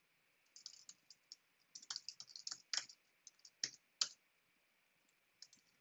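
Faint typing on a computer keyboard: runs of quick key clicks with a few louder single keystrokes through the middle, then a short run of clicks near the end.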